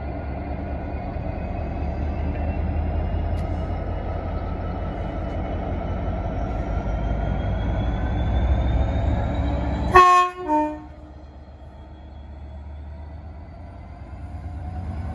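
Class 66 two-stroke V12 diesel locomotive approaching slowly with a steady low engine rumble and a faint rising whine. About two-thirds of the way through it sounds its two-tone horn, a short high note followed by a shorter lower note, and the rumble is quieter afterwards.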